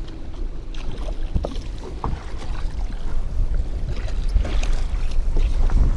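Wind rumbling on the microphone and water lapping against the side of the boat, with several short splashes from a small hooked fish thrashing at the surface.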